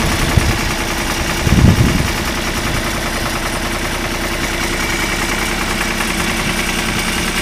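1974 Long 350 direct-injected diesel tractor engine idling steadily, with a brief louder low burst about one and a half seconds in.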